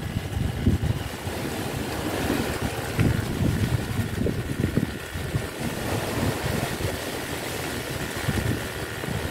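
Strong wind buffeting the microphone in irregular low gusts, over the wash of a rough sea.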